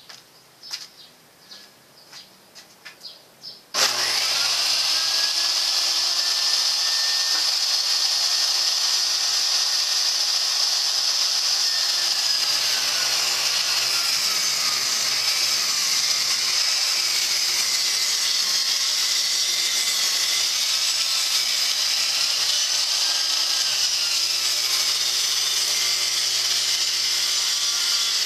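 Homemade table saw switched on about four seconds in and then running steadily, its motor and blade giving a loud, even whine whose pitch wavers now and then. Before it starts there are only a few light knocks.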